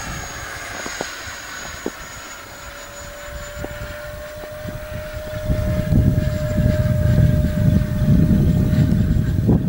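Whine of a Freewing MiG-21 model jet's electric ducted fan in flight: a steady tone with a faint high whistle that fades out partway through. From about halfway, wind buffeting the microphone becomes the loudest sound.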